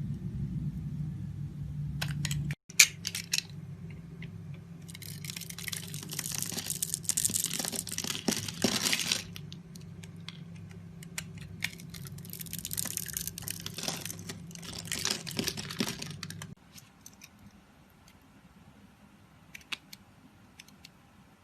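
Knife scraping and cutting through a bar of soap in two long passes, with a sharp snap or click just before the first and a few light clicks afterwards.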